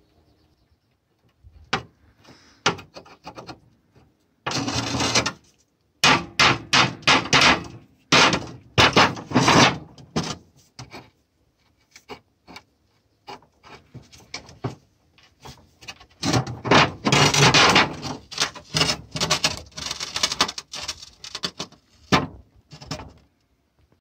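Worn ball joint of an Audi A4 B5 lower rear control arm being rocked and turned by hand: irregular gritty scraping and knocking, some strokes lasting about a second, from a joint caked with dirt that is due for replacement.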